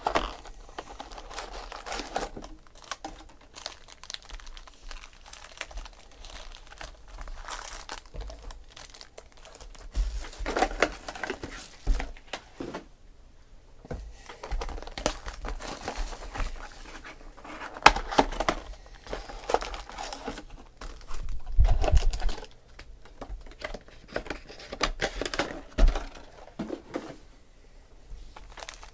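Foil-wrapped trading card packs and their cardboard box being handled: irregular crinkling and rustling, with a few soft thumps as packs are set down on the table.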